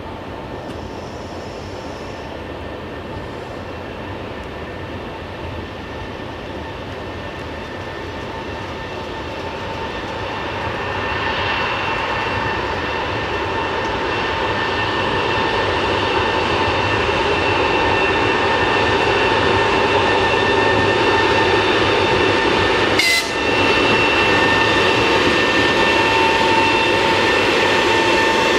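EP20 electric locomotive hauling a passenger train past: a steady rumble of wheels and machinery with several steady whining tones, growing louder from about a third of the way in as the locomotive comes close. A single brief sharp click about two-thirds through.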